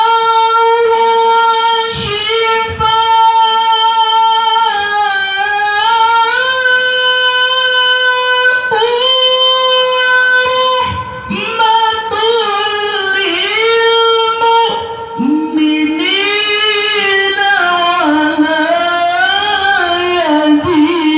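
Male Quran reciter (qari) reciting in the melodic tilawah style at a high pitch into a hand-held microphone. He starts abruptly on a long held high note with ornamented turns, and drops to lower, more wavering phrases about fifteen seconds in.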